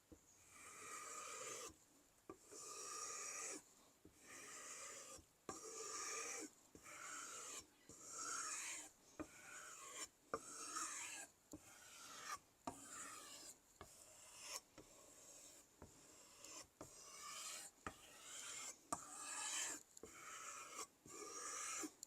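Steel knife blade scraping across a sharpening wheel in repeated strokes, about one stroke a second, each a rasping scrape with a shifting ring, with short breaks and light clicks between strokes.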